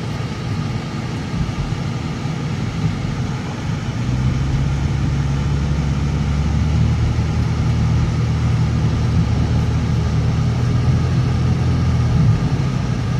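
Car engine and road noise heard from inside the cabin while driving: a steady low drone that gets louder and fuller about four seconds in.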